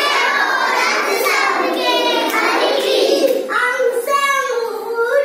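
Young children singing a Hindi alphabet (varnamala) rhyme together.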